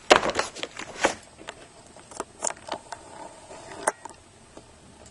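Cardboard box and paper packaging being handled and rummaged through: a burst of scraping and rustling at the start, then scattered light clicks and taps.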